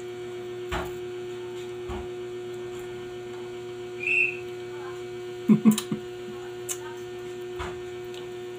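Steady electrical mains hum, with a few soft clicks and smacks of a boiled egg being handled and chewed and a short high tone about four seconds in.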